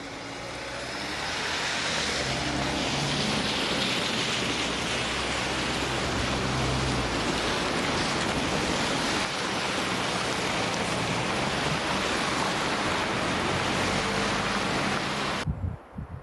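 A steady rushing hiss swells over the first two seconds and holds, with the low running note of a distant diesel locomotive's engine beneath it. It cuts off sharply just before the end.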